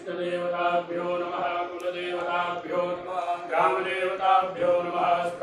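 Sanskrit mantras chanted by a voice on a nearly level pitch, line after line with short breaths between phrases.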